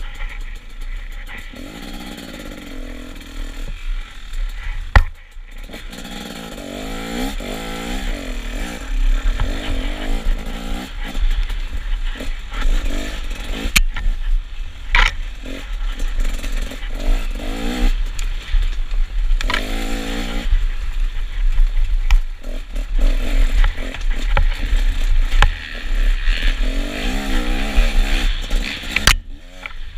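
Dirt bike engine revving up and falling back again and again as the bike is ridden along a rough trail, over a steady low wind rumble on the camera's microphone. A few sharp knocks stand out, the loudest about five seconds in.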